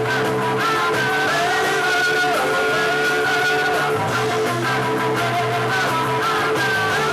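Live new wave rock band playing: a sustained, bending melody line over steady bass notes, with guitar and percussion.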